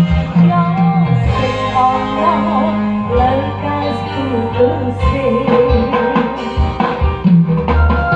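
A song with a singing voice, guitar and a heavy, pounding bass line, played loud through a 3-way speaker box under test.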